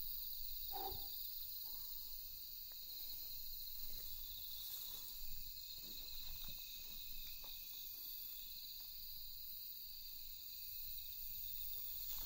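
A steady chorus of night insects trilling at several high pitches, with faint footsteps and rustling through weeds underneath.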